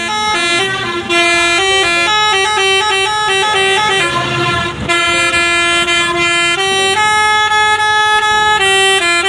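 Basuri telolet musical horn playing a tune: loud horn notes that step quickly from pitch to pitch, several a second, with a brief dip about five seconds in.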